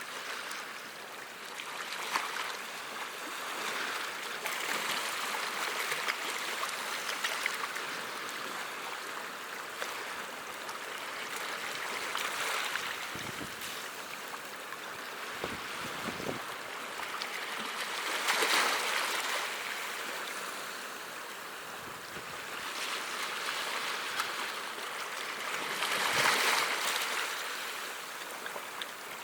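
Sea waves washing onto the shore, a steady rushing hiss that swells and falls back every several seconds, loudest about two-thirds of the way through and again near the end.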